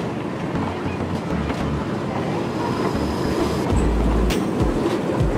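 Children's kiddie train of pig-shaped cars rolling along its small track, wheels rattling and clacking on the rails, with a few sharp clicks in the second half.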